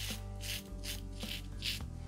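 Double-edge safety razor (Standard Razors aluminium, KAI stainless blade) scraping through lathered three-day stubble in short repeated strokes, about two a second, over background music.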